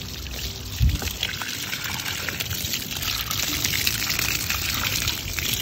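Water from a garden hose nozzle spraying onto a dirt bike's plastic front fender and knobby front tyre, splashing and pattering steadily. There is a brief low thump about a second in.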